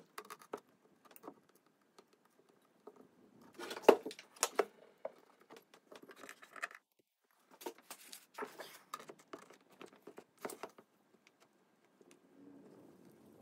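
A small metal block plane and other hand tools knocking and scraping on a veneered wooden tabletop in short, scattered bursts, with a sharp knock about four seconds in.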